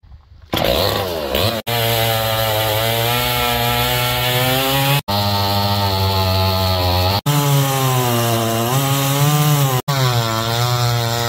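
Two-stroke chainsaw running at full throttle, its pitch sagging and recovering as it works. The sound comes in several short takes, each ending with an abrupt cut.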